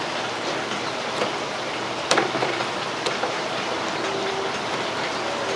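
A steady hiss, with a few light clicks and taps as oiled fish fillets are rubbed and moved about on an aluminium pan, the sharpest about two seconds in.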